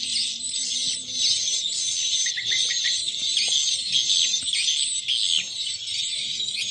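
Two swiftlet lure-call recordings playing at once through a pair of tweeters on a two-channel swiftlet-house sound player: a continuous, dense stream of rapid, high-pitched chirps and twitters, thin with no low end.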